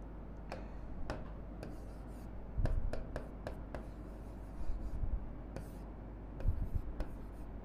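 Pen writing on a board: faint scratching and tapping strokes as a word is written, with a few dull knocks about two and a half and six and a half seconds in.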